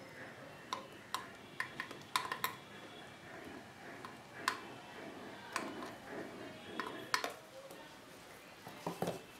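Handling noise from the fabric-covered power cord of a Crompton electric iron being untied and unwound by hand: soft rustling with a dozen or so sharp light clicks and knocks scattered through.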